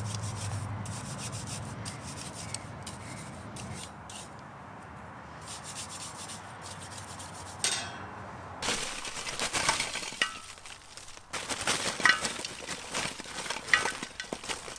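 A grill brush scrubbing a charcoal grill that was left uncleaned since last season: a rasping, scraping sound, faint at first, then a quick run of harder strokes through the last six seconds.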